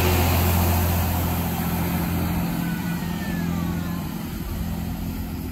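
Class 166 Turbo diesel multiple unit's underfloor diesel engines running as the train pulls out and moves away, a low engine drone that fades out about two seconds in, the rest dying down as it recedes.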